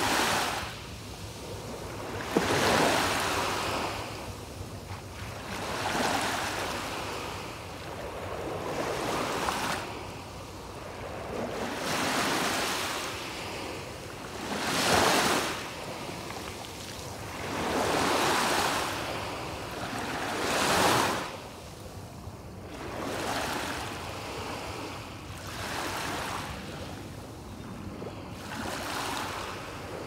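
Small waves breaking and washing up a sandy beach, a fresh wash of surf every three seconds or so, each one swelling and then fading away.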